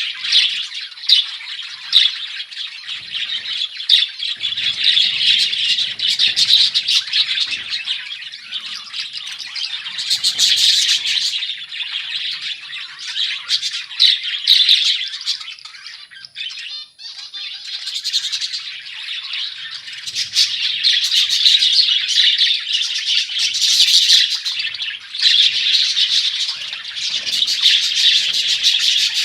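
A colony of budgerigars chattering and chirping continuously, many birds calling at once, with a brief lull a little past halfway through.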